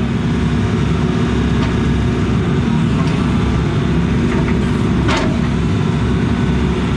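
Case CX80 excavator's diesel engine running steadily, with a brief higher-pitched sound about five seconds in.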